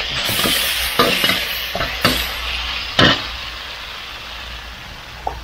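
Holy basil and grilled pork neck stir-frying in a hot wok: a steady sizzle, with the stirring utensil clanking against the wok about once a second, the loudest clank about three seconds in. The sizzle dies down toward the end.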